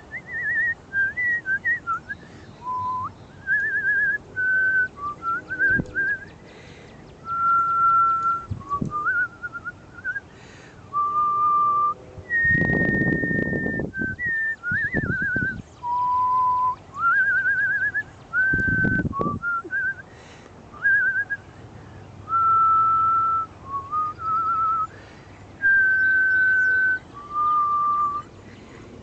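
A woman whistling a tune: phrase after phrase of clean held notes broken by quick warbling trills, with short gaps between phrases. Two brief low rumbles break in, a little under halfway and about two-thirds through.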